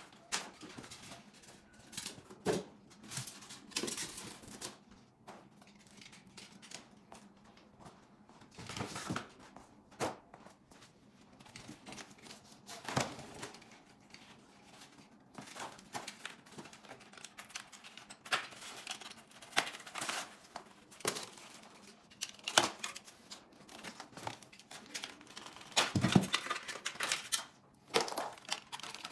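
Zip ties being cut and foam and paper packing wrap being crinkled and torn off a boxed electric bike: irregular sharp snips and clicks among rustling, with a louder stretch of handling near the end.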